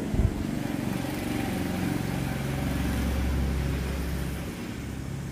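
An engine running steadily, growing louder toward the middle and easing off near the end, with a short thump just after the start.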